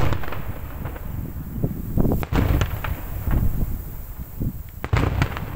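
Daytime fireworks salute: a rapid run of firecracker bangs and crackling over a continuous low rumble, with two sharper, louder reports about two seconds in and near the end.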